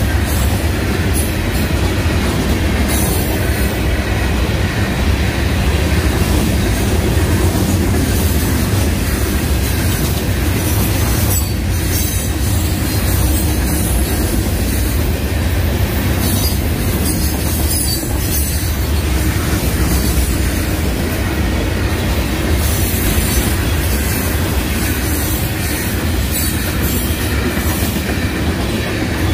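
Freight train's hopper and gondola cars rolling past close by: a steady, loud rumble of steel wheels on rail, with scattered clicks from the wheels and rail joints.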